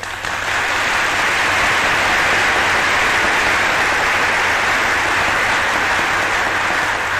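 Sustained applause from a large audience: a dense, steady wash of many hands clapping that starts abruptly and holds at full strength.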